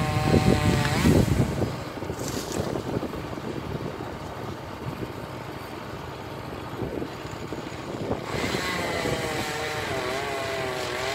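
An engine running with a wavering pitch, loudest in the first second and a half and again over the last three seconds, with a low rumbling buffet near the start.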